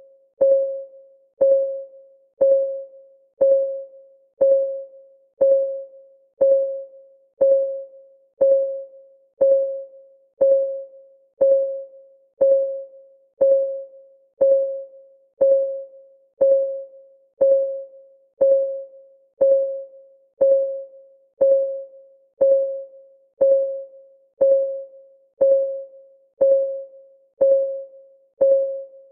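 Clock ticking sound of a countdown timer: one short, pitched tick each second, every tick alike and dying away quickly.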